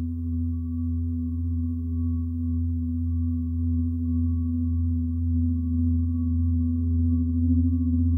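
Minimal electronic drone music: a deep steady hum under a held low-mid tone, both slowly wavering, with a faint high tone above. It swells gradually louder.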